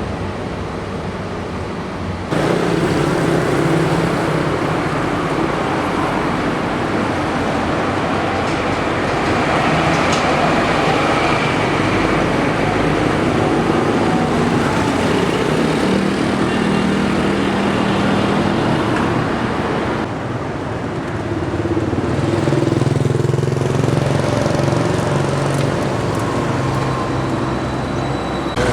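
Town street traffic, with cars and motorcycles running and passing in a steady mix of engine hum and road noise. The sound steps up suddenly about two seconds in, and dips briefly around twenty seconds in.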